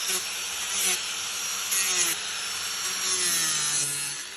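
Wood being worked with a tool: a rasping, sawing-like noise in strokes about twice a second. A low hum falls in pitch near the end.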